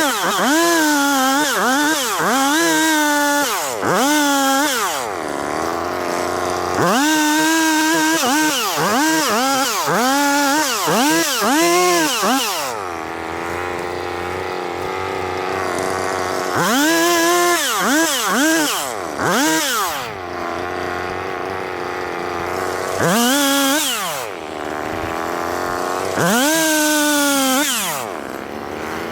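Two-stroke chainsaw revved in quick repeated bursts, each one rising and then falling in pitch. The revs come in clusters of several, with the saw dropping back to a lower, steadier idle between them, and single revs near the end.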